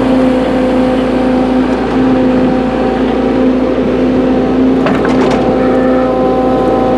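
Hydraulic excavator running under heavy load as its bucket teeth are forced down into hard lamproite ore: a steady engine drone, with a couple of sharp knocks about five seconds in.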